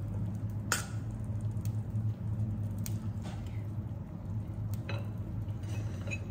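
Cooked rice being fluffed with a utensil in its pot: soft squishing with a few sharp clicks of the utensil against the pot, over a steady low hum.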